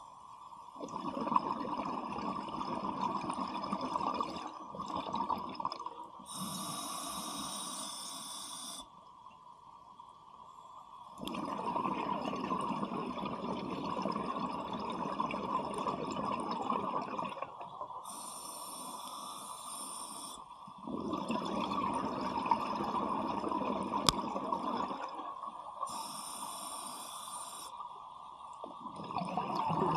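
Scuba diver breathing through a regulator underwater: long exhalations of bubbles, each followed by a shorter hissing inhalation, about three breaths in all.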